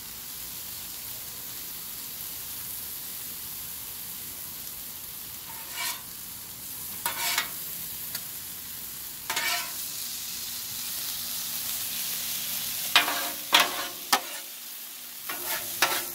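Peas, carrots and bean sprouts sizzling steadily on a hot flat-top griddle, with steel spatulas scraping and clinking against the griddle plate now and then, the loudest strikes coming near the end.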